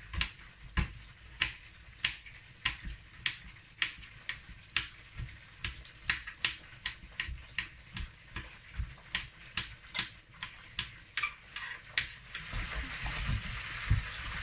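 Kitchen knife dicing a scotch bonnet pepper on a wooden cutting board: the blade knocks on the board in a steady chopping rhythm of about two strokes a second.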